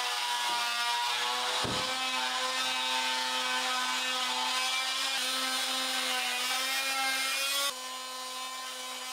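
Electric woodworking power tool running with a steady high whine over a hissing, rasping noise. It gets quieter near the end, though the whine goes on.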